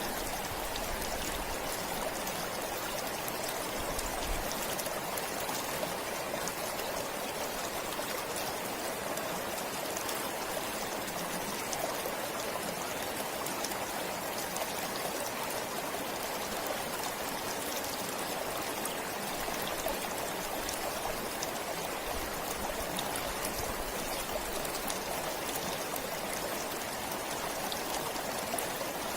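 A forest stream flowing steadily, water running and trickling in an even, continuous wash.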